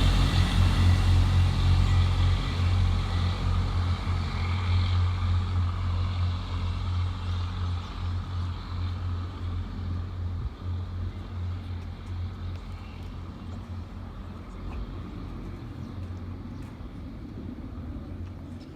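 A train passing and moving away, its steady low hum and rumble fading gradually.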